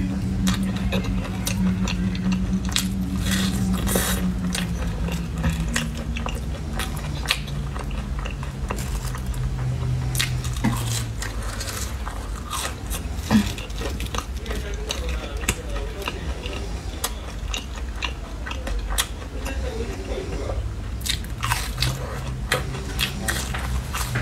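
Close-miked eating: crispy batter-fried food bitten and chewed, with many short crunches and wet mouth sounds. A steady low hum runs under the first half.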